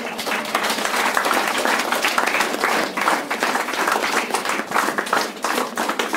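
Audience applauding: many hands clapping in a dense, even patter that starts abruptly and holds steady.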